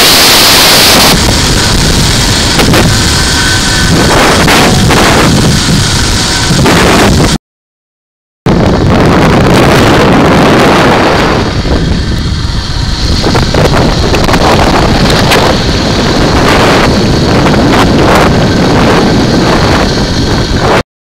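Loud wind rushing over the microphone, broken once by about a second of dead silence some seven seconds in.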